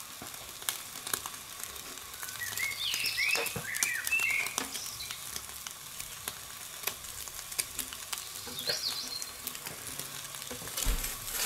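Steady hiss with scattered small crackles from a pizza baking on a pizza stone under the Steak Burner XL's gas burner, its toppings sizzling. A few short bird chirps come in about two to four seconds in and again briefly near nine seconds, and there is a low thump near the end.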